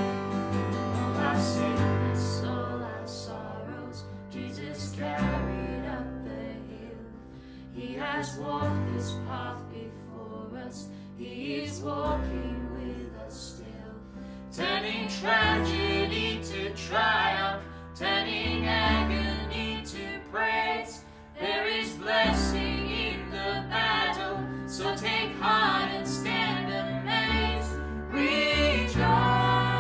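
Contemporary worship song: voices singing over a band with bass and guitar, getting fuller and louder about halfway through.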